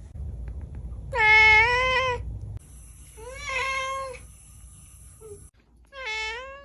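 Domestic cat meowing three times: a long, loud meow, a second shorter one, and a third near the end.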